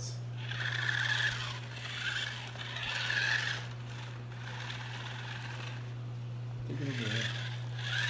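Electric drive motors and gears of a small 1/24-scale double-sided stunt RC car whirring in short bursts as it is driven over a tile floor: three bursts in the first few seconds, then another near the end.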